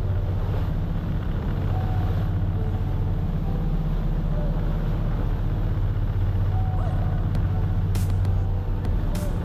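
Boat engine running steadily under way, a loud, even low hum. A few sharp clicks come near the end.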